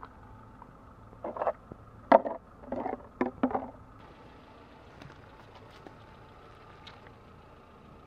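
Plastic drink bottles crushed under a car tyre: four or five loud crackling, popping bursts in quick succession, then a low steady background with a few faint ticks.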